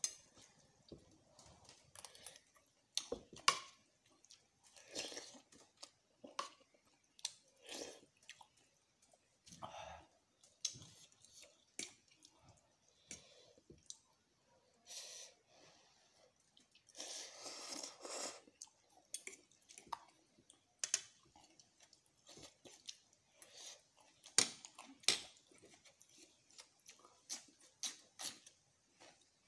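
Close-up chewing of instant noodles and rice, with many short sharp clicks of a metal spoon and fork against a plastic bowl.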